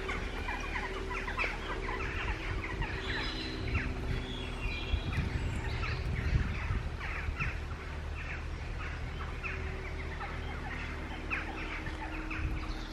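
Peafowl clucking over and over in short calls, with small birds chirping now and then and a steady low hum underneath.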